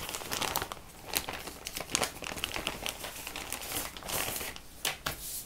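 Frosted plastic zip bag crinkling and rustling in irregular sharp crackles as it is handled and opened.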